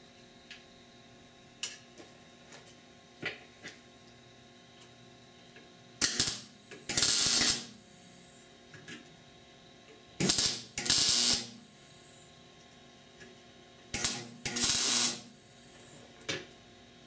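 Wire-feed welder laying short tack or stitch welds on sheet-steel patch pieces: six brief bursts of arc noise, each under a second, in three pairs about four seconds apart. Light clicks of metal being handled come between them.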